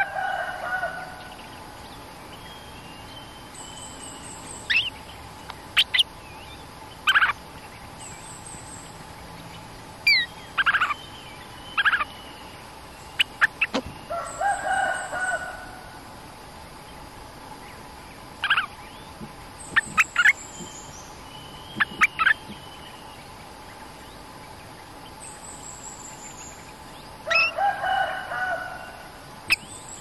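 Stripe-throated bulbuls calling: three bubbly, warbled phrases, near the start, in the middle and near the end, with sharp single chip notes scattered between them. A short, high, thin note repeats every couple of seconds in the background.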